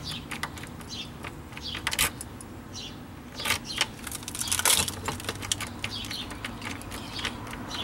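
A bunch of keys on a key ring jangling and a brass doorknob and lock clicking and rattling as a front door is worked open, in irregular clusters of light jingles and clicks.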